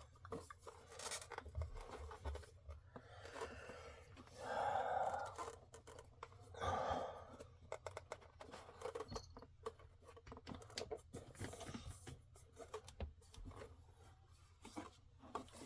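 Parts of a cartridge storage rack being handled and pressed into place: scattered clicks and scrapes, with two longer rubbing or sliding sounds about four and a half and six and a half seconds in.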